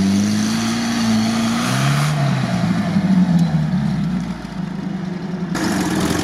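UAZ-469 engine revving under load as the jeep climbs a steep dirt slope: the pitch rises, dips about two seconds in, then climbs again and holds. Near the end the sound changes abruptly to a different engine note.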